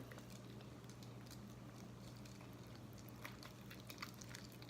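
Faint, irregular sticky clicks and squelches of homemade slime being mixed and kneaded, over a steady low hum.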